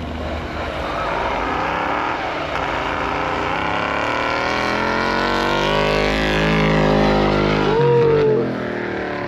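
Two offroad trucks drag racing on snow, engines revving hard at full throttle. The engines grow louder as they come closer, then drop in pitch as they pass.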